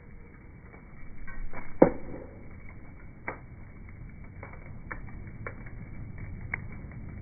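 Bonfire crackling in slowed-down slow-motion audio: scattered sharp pops and ticks over a low steady rumble, with one loud pop about two seconds in.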